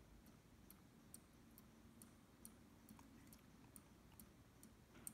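Water dripping slowly from a kitchen faucet, faint regular ticks at a little over two drops a second, over a faint low hum.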